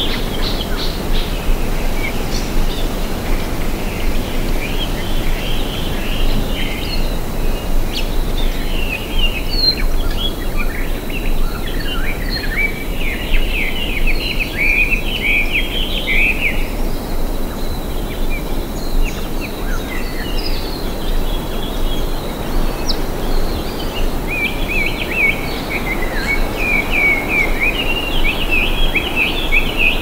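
Several forest birds of Kauai's Alakai Swamp singing over a steady rush of wind in the trees. The chirping phrases come in bunches, busiest around the middle and again near the end, with a sparser stretch between.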